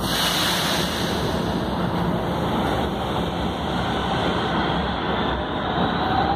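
Metro train pulling out of the station: a steady rumble of wheels and running gear, with a faint whine rising slightly in pitch over the last few seconds as it gathers speed.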